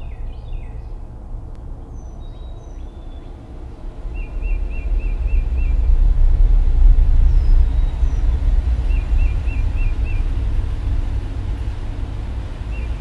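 Outdoor ambience of a low rumble that swells a few seconds in, with birds calling over it: a quick run of about six repeated chirps heard three times, and a few single high whistled notes.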